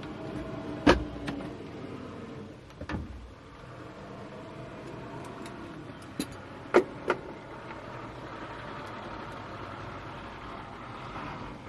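Scattered sharp clicks and knocks from hands handling things inside a parked small plane's cabin with the engine off, over a steady low background hum. The loudest click comes about a second in, and three more come close together about two-thirds of the way through.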